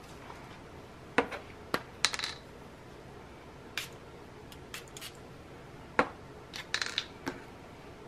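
Light, scattered clicks and taps of a paintbrush and small supplies against a plastic watercolour palette and tabletop, about ten in all and unevenly spaced, a few with a short hissy tail.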